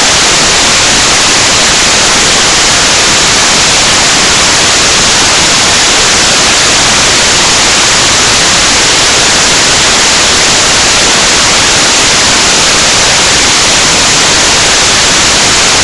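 Loud, steady static hiss, an even white noise with no pitch or rhythm, which cuts off suddenly near the end.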